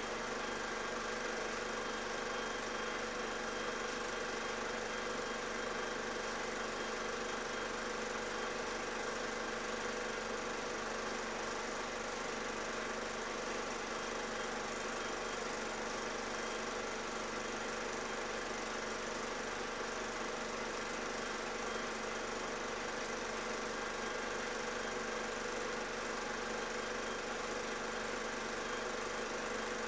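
A steady mechanical hum made up of several fixed tones over a constant hiss, unchanging in pitch and loudness throughout.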